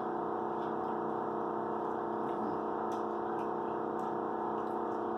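Steady droning background music of held, unchanging synthesizer-like tones, with a few faint clicks.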